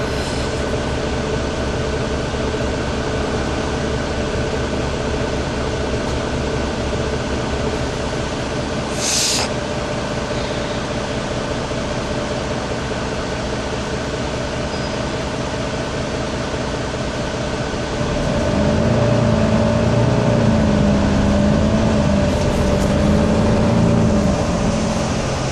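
Interior of a Mercedes-Benz Conecto II city bus: the diesel engine runs steadily at a standstill, with a short hiss of air about nine seconds in. Near the end the engine grows louder and its pitch rises and falls as the bus pulls away.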